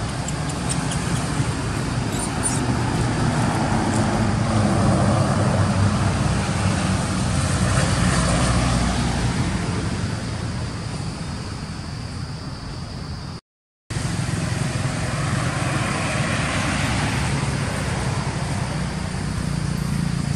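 Steady rumble of distant road traffic, swelling as vehicles pass about four seconds in and again a few seconds after the middle. The sound cuts out completely for a moment just after the middle.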